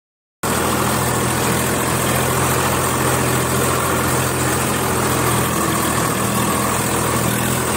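Swaraj 855 FE tractor's three-cylinder diesel engine running steadily as the tractor drives through deep water, with a rushing hiss of water thrown up by the front wheel. The sound cuts in about half a second in.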